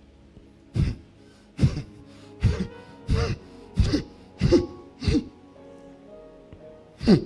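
Soft sustained keyboard chords with a man's voice breaking in over them in short, loud, wordless bursts, about one a second, pausing near the end before two more.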